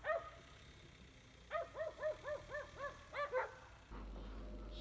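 Golden retrievers barking: one bark at the start, then a quick run of about eight barks.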